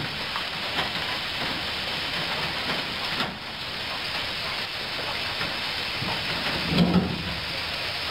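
Rocks clattering and scraping in the tipped steel bed of a Mitsubishi Colt dump truck over a steady rushing noise, with scattered small knocks and one heavier thud about seven seconds in.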